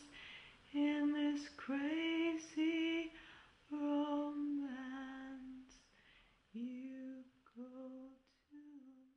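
A woman singing solo and unaccompanied, a slow line of held and gliding notes that grows fainter toward the end.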